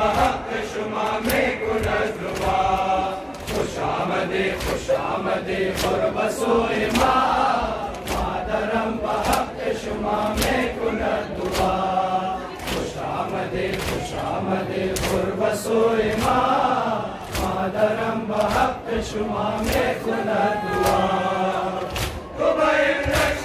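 A crowd of men chanting a Muharram noha (lament) together, over a steady beat of open hands slapping bare chests in matam.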